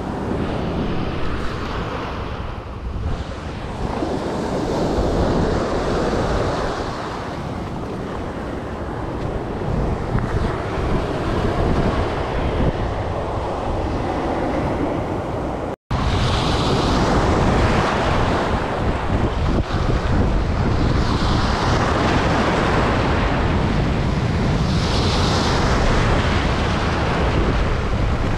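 Small waves breaking and washing up a sandy beach, rising and falling every few seconds, with wind buffeting the microphone.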